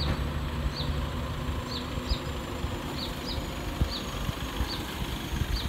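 Outdoor background with a steady low hum under an even hiss, and short high chirps that repeat irregularly about twice a second.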